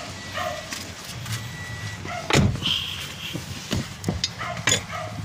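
Toyota Vios car engine running, with a single loud thump about two and a half seconds in, like a car door shutting, and a few lighter knocks later.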